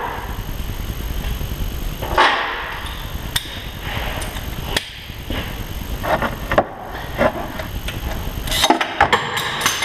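Hand tools clinking and scraping on metal in a truck's engine bay. Near the end comes a quick run of sharp metallic clatters, a dropped ratchet falling into the engine compartment.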